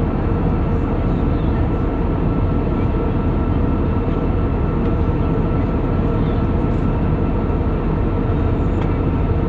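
Steady drone of an airliner cabin in flight: engine and airflow noise, even and unchanging, with a few faint steady tones in it.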